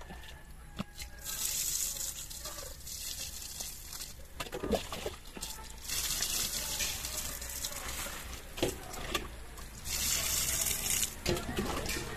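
Water poured from a small hand-held container onto garden soil, in three pours of a few seconds each, with a few light knocks between them.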